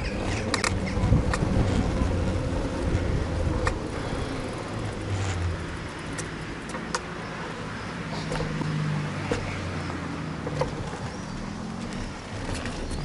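Road traffic: passing cars with a low engine hum and tyre noise that rises and falls, and scattered light clicks and knocks throughout.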